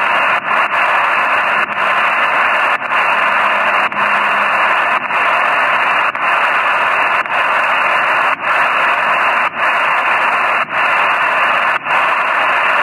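HF shortwave receiver tuned to 8122 kHz, giving a steady, thin hiss of static on an open channel with nobody transmitting. The hiss drops out briefly about once a second.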